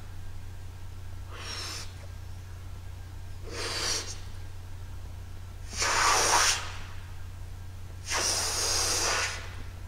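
A woman blowing up a rubber balloon by mouth: four rushes of breath, the later ones louder and longer, the last lasting over a second.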